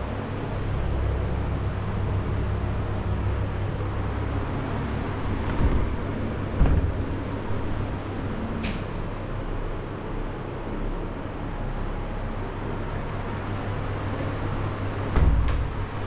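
Steady low hum with a few handling knocks, and a sharp click about nine seconds in as a door is pulled open by its metal pull handle.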